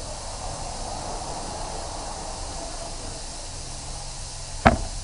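Steady hiss of workshop background noise, with one sharp knock near the end, like a hand tool striking metal under the car.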